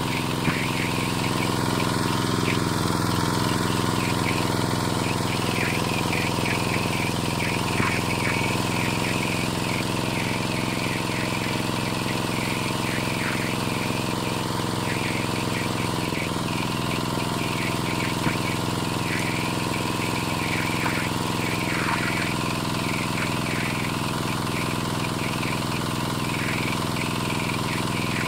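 Zubr 12 hp walk-behind tractor's single-cylinder diesel engine running steadily with its trailer on a slope, its pitch shifting slightly about halfway through.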